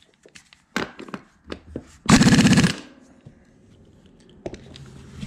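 A Cub Cadet front wheel is given a few light knocks, then spun hard by hand. The spin gives a brief loud rattling whir about two seconds in as the hand sweeps the tire tread. The wheel then coasts with only a faint low hum from its front axle bearings, which are still running free without noise: not yet enough preload.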